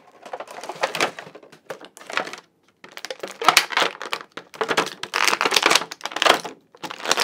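Logo intro sound effect: several clusters of rapid clicking and crackling noise, each up to about a second and a half long, with short silent gaps between them and no tune.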